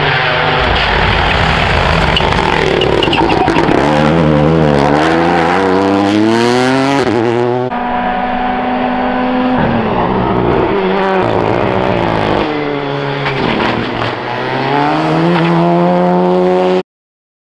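Rally car engines at full throttle on a stage, revving up through the gears with a drop in pitch at each shift, then lifting and pulling again as a car passes. There is a cut to a second car about eight seconds in, and the sound stops abruptly near the end.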